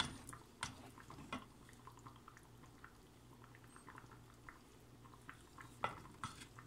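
A wooden spoon stirs a thick roux as milk is worked in, in a stainless steel pot. The stirring is faint, with a few short sharp clicks, most near the start and near the end, over a low steady hum.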